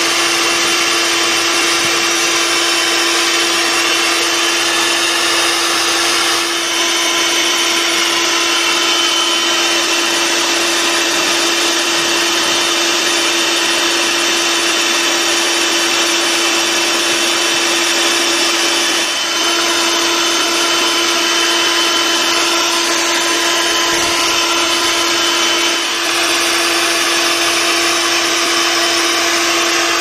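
Bee vacuum running steadily, a motor hum with a constant pitch and a few brief dips in loudness, as its PVC nozzle sucks honey bees off their comb during a colony removal.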